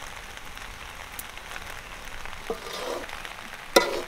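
Pasta sizzling in a large metal wok with a steady hiss while a metal slotted spoon stirs it, with a few light scrapes and one sharp ringing clank of the spoon against the wok near the end.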